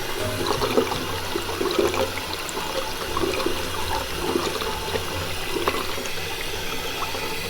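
Water running and splashing steadily, with a low hum underneath.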